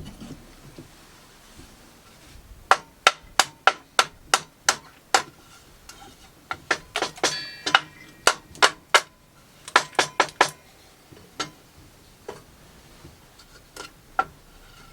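A run of sharp knocks on timber, about three a second, then in short clusters and finally a few spaced ones near the end, with a brief metallic ring after some: the waste is being knocked out between the saw cuts of a cross halving joint.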